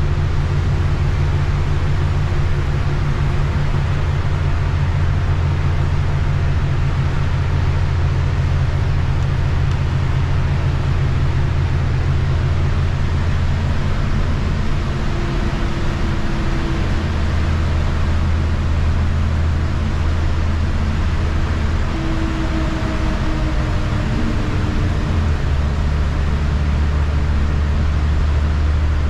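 Inside a city transit bus at road speed: a steady low drone from the engine and drivetrain over the hiss of tyres on a wet road. The engine note shifts a little past halfway and again near the end.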